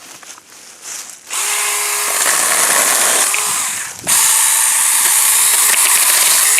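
Saker 4-inch cordless mini electric chainsaw running with a steady buzz of motor and chain, in two runs with a short break about four seconds in.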